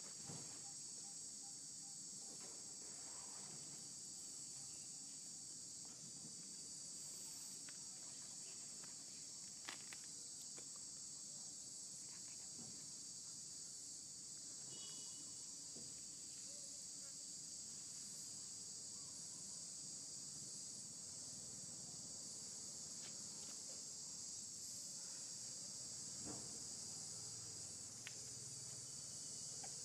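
Steady, high-pitched insect chorus, several even, shrill tones held without a break, with a few faint clicks.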